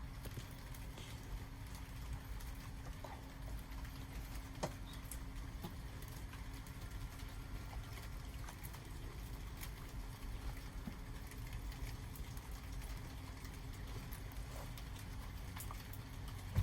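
Rain dripping and pattering, with scattered irregular drops over a steady low rumble.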